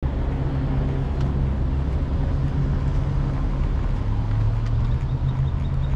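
Volkswagen Jetta driving slowly, its engine giving a steady low hum over road rumble, the hum dipping slightly in pitch a little after the middle.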